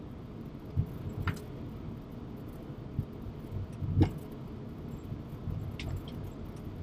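Steady low rumble in the flight deck of a taxiing Airbus A380, with a few short dull knocks, the loudest about four seconds in.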